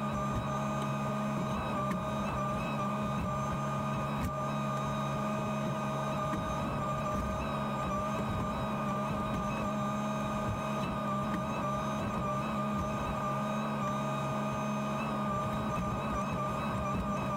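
JCB 48Z-1 mini excavator's diesel engine and hydraulics running steadily, heard from inside the cab: a constant droning hum with a higher steady whine above it.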